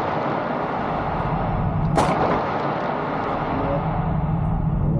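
A single pistol shot about two seconds in, a sharp crack over steady background noise.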